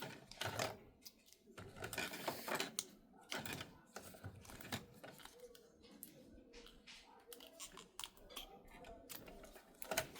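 Scattered faint clicks, taps and rustles from hands handling small plastic printer parts and ink-filling tools, with a noisier rustle about two seconds in.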